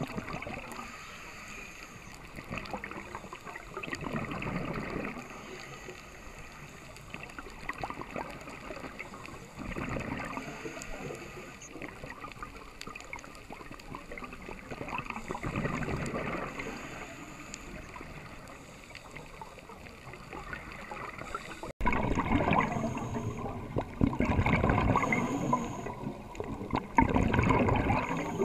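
Scuba diver breathing through a regulator underwater, with a gush of bubbling about every five to six seconds. After a cut about two-thirds of the way through, the bubbling comes louder and more often.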